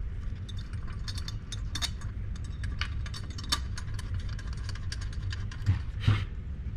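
Light clicks and taps of metal parts being handled and seated onto an aluminium intake manifold, over a steady low machine hum, with one brief louder knock about six seconds in.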